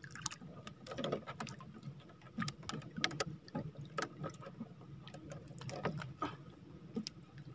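Scattered faint clicks and taps as a fish and sabiki hooks are handled in a small outrigger canoe.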